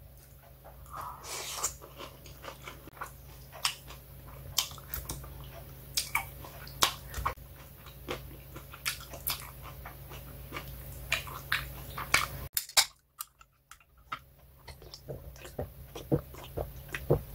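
Close-up eating sounds: chewing and biting of noodles and shellfish, with scattered sharp clicks of metal chopsticks and a spoon against a ceramic bowl. About twelve and a half seconds in the sound drops out for around a second.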